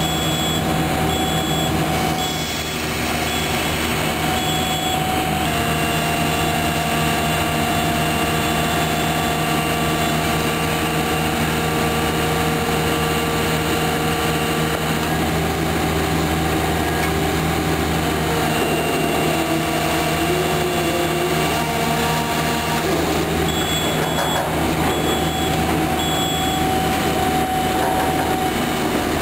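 Sany SR150C rotary piling rig's diesel engine running steadily. A high warning alarm beeps in a quick on-off pattern near the start and again late on.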